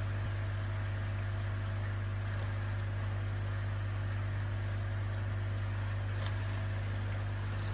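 Steady low electrical hum with an even hiss over it, and a faint click about six seconds in.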